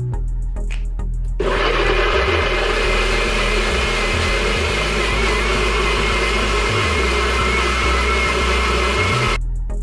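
NutriBullet blender motor running with a steady, slightly wavering whine, blending mango pieces and mango chutney until smooth. It starts about a second and a half in and stops just before the end.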